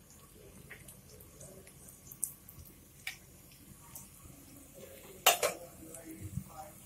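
Hot oil with a pinch of hing in a kadhai, crackling faintly with scattered small ticks. A little past five seconds in, a metal utensil clatters against the pan, the loudest sound.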